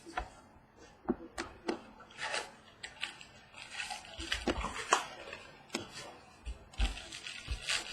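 A trading-card mini box being opened and its cards handled: irregular clicks and taps with short bursts of rustling and crinkling of the cardboard and wrapper.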